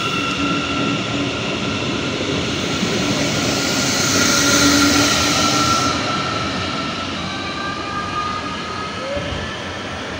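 DB Regio class 463 electric multiple unit moving off and away along the track: a steady electric whine over wheel-on-rail noise, loudest about four to five seconds in, then fading as it draws away.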